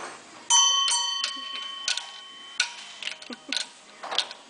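A sharp metallic clank that rings on and fades over about a second and a half, followed by several lighter taps and knocks, as metal objects or tools are struck and knocked about.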